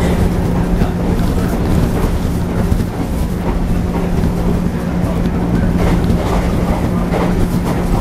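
A JR 113 series electric train running at speed, heard from inside the car: the MT54 traction motors hum at a steady, even pitch over the rumble of wheels on rail.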